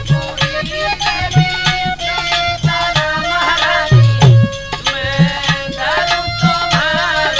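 Instrumental interlude of a Hindi devotional folk song (Devi bhajan): hand drums beat out a rhythm under a wavering melody line, with no singing.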